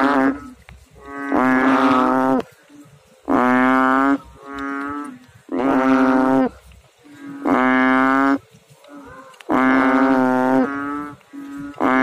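Banded bullfrog (Kaloula pulchra) calling from the water: a series of loud, low-pitched calls, each about a second long, repeated roughly every two seconds, about six in all.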